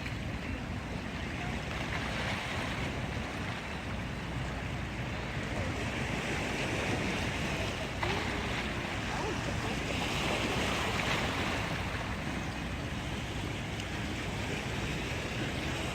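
Steady wind rushing over an outdoor microphone, with a faint click about eight seconds in.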